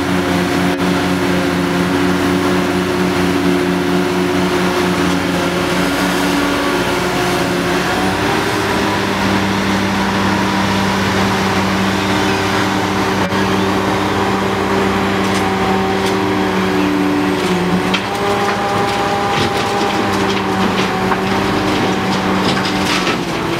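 Hitachi ZX800 excavator's diesel engine running steadily under hydraulic load as it works, its pitch shifting about a third of the way in and again about three-quarters through. A few sharp knocks near the end.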